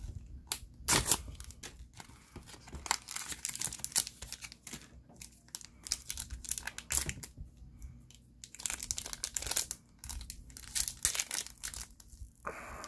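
Foil wrapper of a Bakugan Battle Brawlers trading-card booster pack crinkling and being torn open by hand, in irregular runs of crackles with short pauses.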